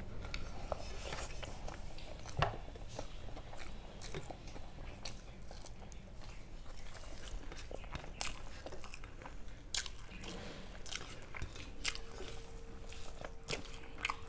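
A person chewing and biting food close to the microphone, with scattered crunches.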